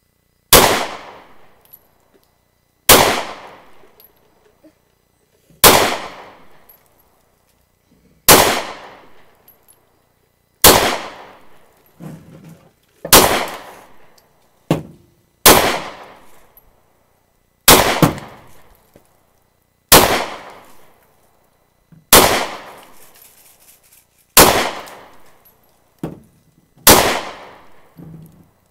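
Glock 23 Gen 3 .40-calibre pistol firing twelve single shots, evenly paced about two and a half seconds apart, each followed by a short echoing ring-out.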